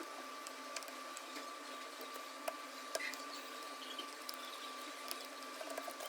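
Scattered faint clicks and light taps from small phone parts being handled and pressed together while an iPhone screen is fitted. Under them is a steady hiss with a faint constant whine.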